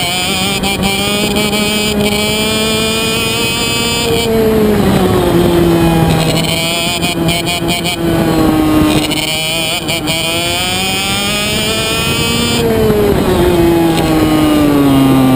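IAME Reedster KF1 125 cc two-stroke kart engine running at racing speed. Its pitch climbs along the straights and drops twice as the kart slows for corners, about four seconds in and again from about thirteen seconds.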